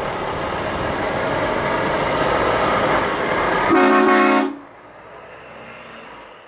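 A Volvo FH truck tractor unit drives close past, its engine and tyres growing louder. About four seconds in it gives a short horn blast of under a second, the loudest sound here, and then the sound falls away sharply.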